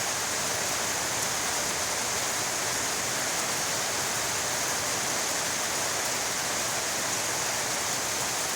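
Heavy rain falling steadily, a continuous even hiss with no thunder or separate drops standing out.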